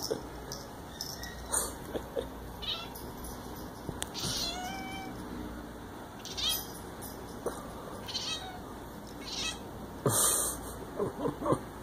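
Bengal cat chirping: short, high chirps and trills every second or two, with a quick run of several chirps near the end.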